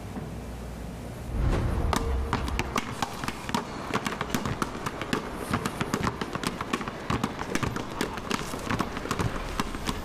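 Several basketballs dribbled together in a rhythmic pattern on an asphalt court, a quick run of sharp bounces that starts about a second in.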